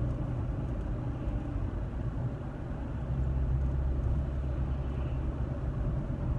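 Steady road and engine noise inside a moving car's cabin, a low rumble that swells a little louder about halfway through.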